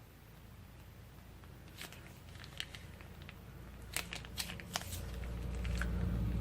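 Plastic piping bags of slime being handled, giving scattered sharp crinkling clicks that grow busier about halfway through, with a low rumbling squish building near the end.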